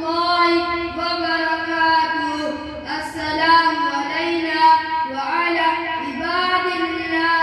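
A child's voice singing a melodic religious recitation, with long held notes that rise and fall.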